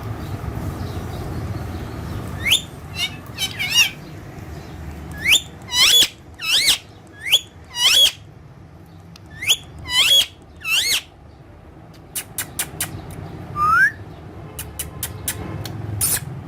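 Green parrots calling: a string of short, loud, sharp screeches in quick bursts, then a run of short clicks and a single rising whistle near the end.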